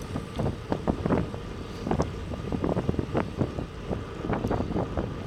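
Wind buffeting the microphone of a camera moving along a road: a rough low rumble broken by many irregular bumps.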